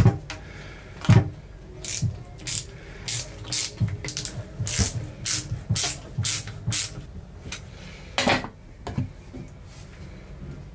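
Flexible plastic drain hose and its fittings being handled and worked into place: a string of short scraping swishes, about two a second, with some low knocks, then one more swish near the end.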